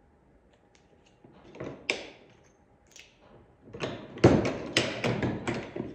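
Tecre 1-inch button maker being worked to press a test flatback button after its crimp die was tightened. A few light clicks come first, then from about four seconds in a quick run of metal clanks and knocks, the loudest near the start of that run.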